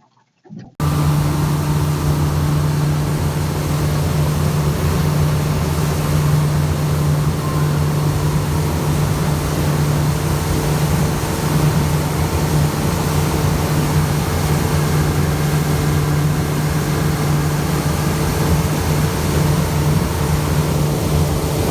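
An engine running steadily at an even speed, with a low hum under a wash of noise; it starts abruptly about a second in.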